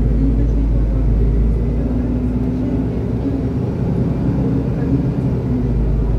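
Cabin noise inside a moving city bus: a steady low rumble of the drivetrain and tyres on the road, with a wavering hum over it.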